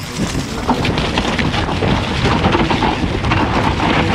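Mountain bike riding down a loose forest-soil loam trail: steady wind noise on the microphone over the rattle of the bike and many small knocks as the tyres run through the dirt.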